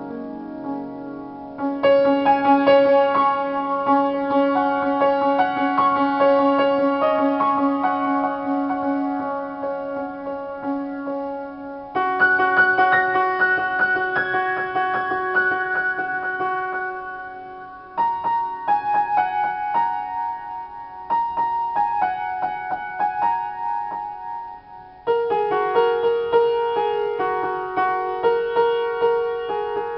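Upright piano played in free improvisation: quick repeated notes over held chords. A new, louder chord comes in four times, roughly every six to ten seconds.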